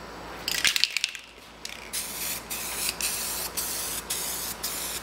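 Activator being sprayed onto hydrographic camo film floating on water. About half a second in come a few sharp spurts of hiss, then a short pause, then steady spraying passes broken by brief gaps about twice a second.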